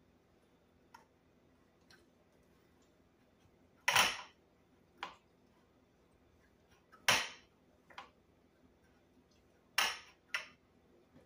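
Metal muffin tin knocking against the cutting board as dough is pressed into its cups: three sharp knocks about three seconds apart, each followed shortly by a softer one.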